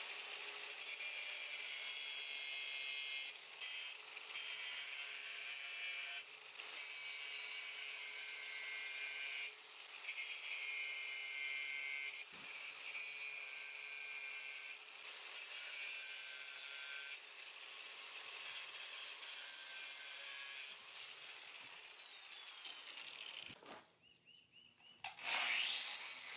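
Suhner angle grinder with a thin cut-off wheel cutting through the gates of a freshly cast iron plow: a steady high whine with several brief dips. It winds down about 22 seconds in, stops briefly, and spins up again near the end.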